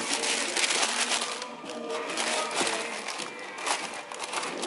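Tissue paper crinkling and rustling as it is handled inside a cardboard shoebox, busiest in the first couple of seconds, over background music.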